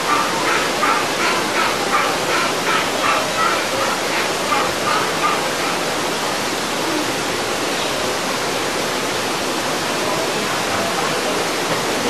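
Steady rushing water, like a waterfall. Over it, for the first five seconds or so, a quick run of short, high repeated calls, about three a second, that then stop.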